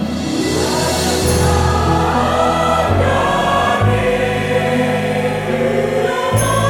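Church choir singing a Javanese hymn, holding long notes that change chord every second or two.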